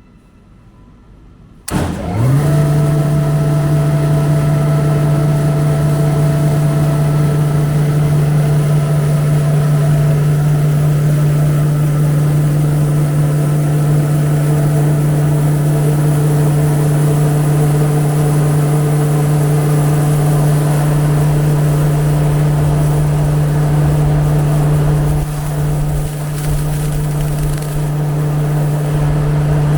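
Kaneko KMP-400JX rice husker started up about two seconds in, spinning up quickly and then running with a loud steady hum after its bearings were all replaced to cure an abnormal noise. A higher tone in the hum fades out about ten seconds in, and the sound drops slightly near the end.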